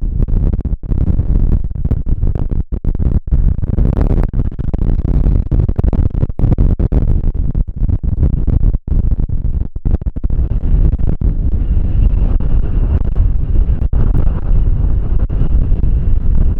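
Strong wind buffeting the microphone: a loud, rough, gusty rumble that keeps cutting out for split seconds.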